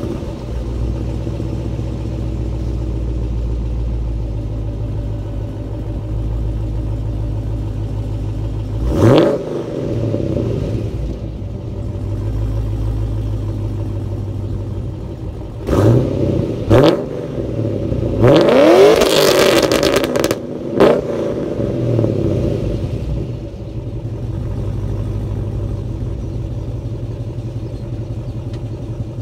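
Modified 6.0-litre V8 of a Holden Caprice, breathing through long-tube headers and a full 3-inch Xforce X-pipe exhaust with cutouts, idling steadily between throttle blips. It gets one quick blip about nine seconds in, two close together around sixteen and seventeen seconds, a longer and higher rev near nineteen seconds, and one last short blip just after.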